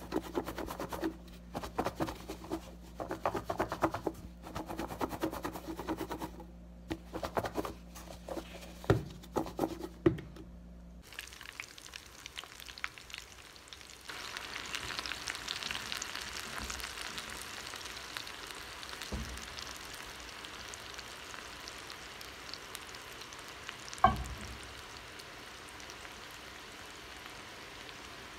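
Rattling, knocking and rubbing as a red plastic container is handled on a counter, over a steady low hum. Then boiled pasta deep-frying in a pan of hot oil: a steady sizzle, with one sharp thump late on.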